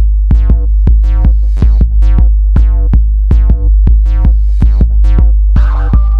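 Loud electronic music with a steady beat, synthesizer notes and heavy bass.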